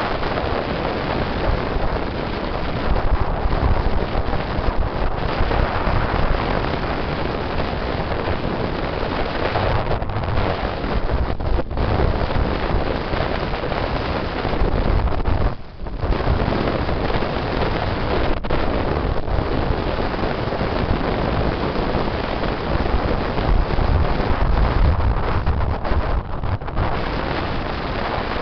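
Wind buffeting the microphone of a vehicle moving along a highway, over steady road and engine noise, with a brief drop about halfway through.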